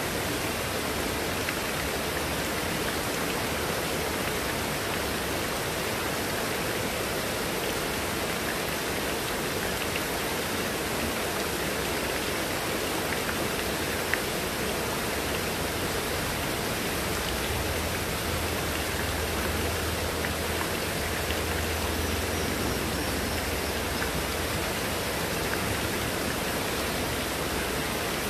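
Heavy rain falling steadily on leaves and wet surfaces, with water pouring off a roof edge.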